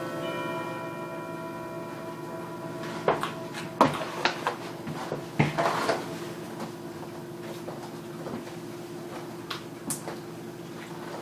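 Kitchen clatter: a few sharp knocks and clinks of pots, pans and dishes being handled, bunched about three to six seconds in with a couple more near the end, over a steady low hum. A chime-like ringing fades out in the first couple of seconds.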